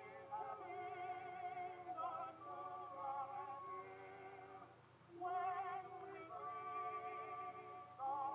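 Background music from an early-1900s 78 rpm phonograph record: a singer holding long notes with vibrato over accompaniment, in phrases with short breaks.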